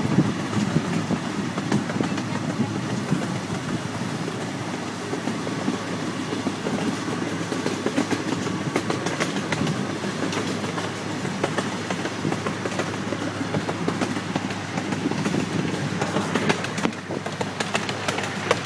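Amusement-park ride train rolling steadily along its track, heard from aboard: a running rumble with constant clicking and rattling of wheels on rails.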